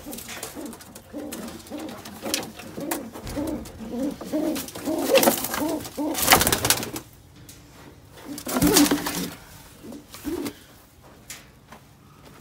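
Domestic pigeons cooing, a run of short repeated low coos, with louder rustling, scuffling bursts about five to seven seconds in and again near nine seconds as the birds are handled.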